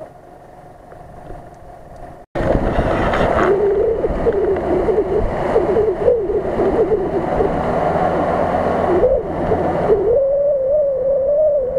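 Mitsubishi L200 pickup being recovered from deep mud on a line run from its front bumper: after a quiet stretch, a hard cut about two seconds in brings a motor working hard under load, a whine that wavers up and down over steady rumbling noise and holds a little higher near the end.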